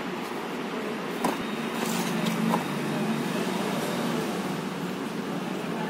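Steady background noise with two light clicks of a cardboard box being handled, about one and two and a half seconds in.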